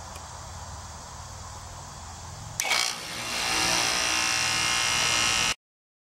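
A Rheem condenser's Copeland scroll compressor starting with a sharp click about two and a half seconds in, then running with a steady whir and hum, started with a 521 compressor saver hard-start kit. The sound cuts off abruptly near the end.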